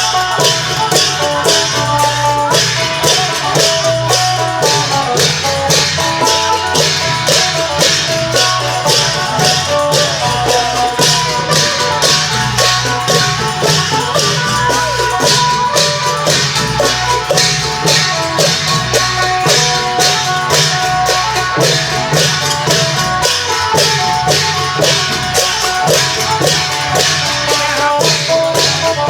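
Isan long-drum (klong yao) band playing a lively procession tune: an amplified phin (Isan lute) melody over thudding long drums and a steady beat of clashing cymbals.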